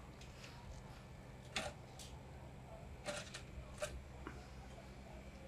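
Metal ice cream scoop scraping and knocking in a stainless-steel tub of chocolate ice cream: a few faint, separate clicks and scrapes. A steady low hum lies under them.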